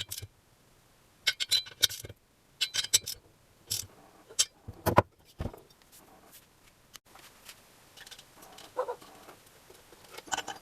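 Small metal parts and hand tools clinking, rattling and scraping in short bursts, busiest in the first half and fainter and sparser after it.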